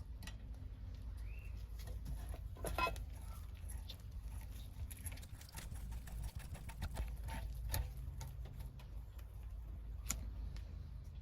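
Faint scattered clicks and taps of small parts being handled, chandelier sockets and wires, with a short cluster of clicks about three seconds in, over a steady low hum.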